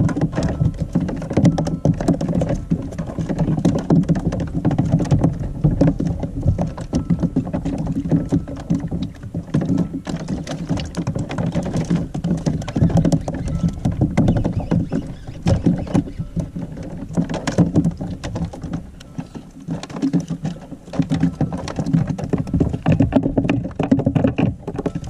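Continuous sloshing and irregular patter of seawater against the plastic hull of a Hobie Outback fishing kayak.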